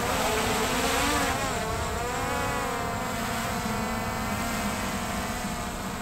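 Small quadcopter drone's propellers spinning up and lifting off: a whine that rises quickly in pitch over the first second, then holds and wavers as the drone hovers and climbs.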